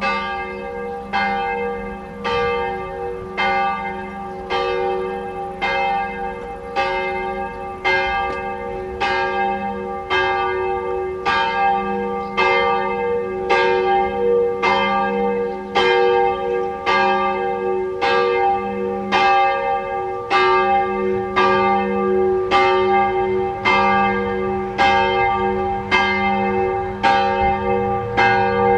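Church bell of Østerlars round church, hung in its separate bell tower, tolling steadily at about one stroke a second, each stroke ringing on under the next.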